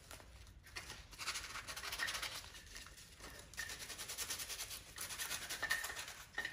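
Sandpaper rubbed by hand over the metal ground contact of a motorcycle blinker mount: rapid back-and-forth scratching strokes, starting about a second in and going on in a few spells. The sanding cleans the ground point to bare, shiny metal so the blinker gets a good electrical ground.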